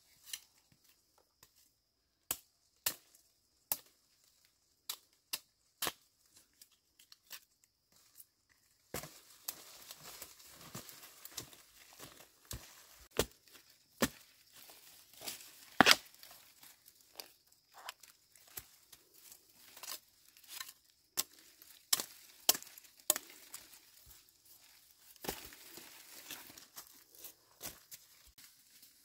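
Machete strokes hacking into brush and the forest floor while digging for bamboo shoots: separate sharp chops for the first third, then continuous rustling and crunching of dry leaves and undergrowth with more chops mixed in, the loudest chop about halfway through.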